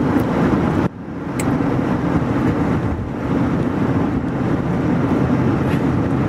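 Steady road and engine noise of a car driving at speed, heard from inside the cabin, a low rumble that dips sharply about a second in and builds back up.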